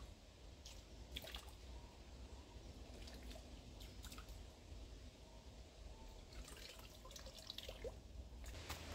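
Faint water dripping and trickling as water is strained through a handmade bushcraft filter into a wooden bowl, with scattered small drips.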